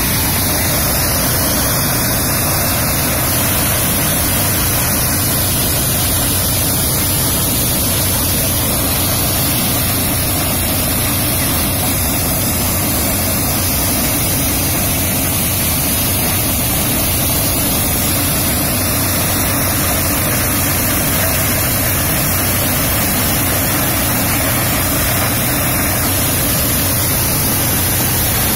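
Lift-model maize thresher running steadily while threshing, a constant mechanical noise without let-up.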